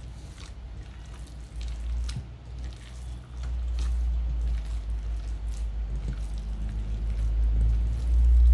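Hands kneading raw ground-beef meatloaf mixture in a metal bowl: wet squishing and squelching as the meat is squeezed through the fingers to work it smooth. A low rumble comes in about three seconds in.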